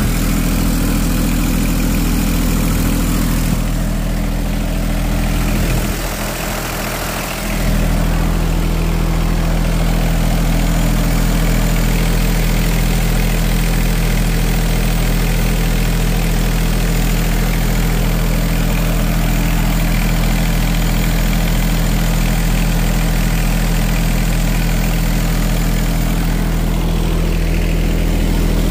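Engine of a Dongyang K1-HC riding cultivator idling steadily. About six seconds in, the sound briefly dips and changes for a second or two, then settles back to the same even idle.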